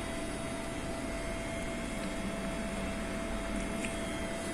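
Steady background hiss and low hum with a faint constant tone: room tone, with no distinct event.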